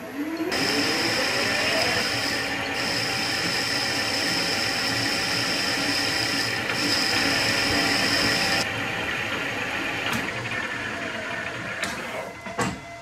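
Victor metal lathe boring out a counterbore in a metal machine foot: the spindle motor's whine rises as it comes up to speed, then the boring cut runs as a steady machining noise with a high ring until about two-thirds through. The lathe runs on more quietly and winds down near the end.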